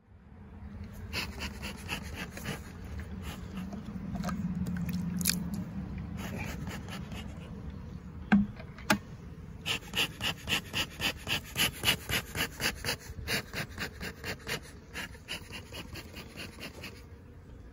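Fast, rhythmic panting at about three breaths a second, loudest from about ten to fifteen seconds in, with two sharp clicks a little after eight seconds.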